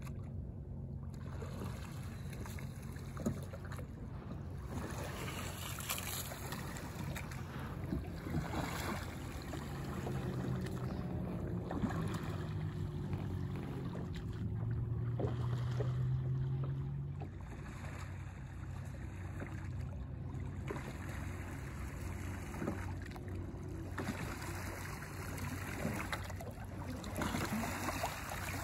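Wooden oars of a sliding-seat canoe rowing rig dipping and splashing through calm water in irregular strokes, with water lapping at the hull and some wind on the microphone. A steady low hum runs underneath and swells for a few seconds near the middle.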